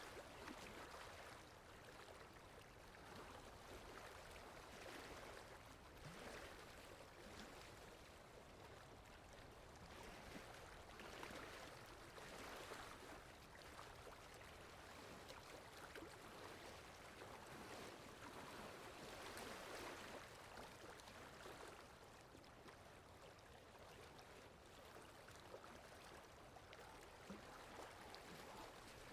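Faint water lapping in soft swells that rise and fall every few seconds, with wind.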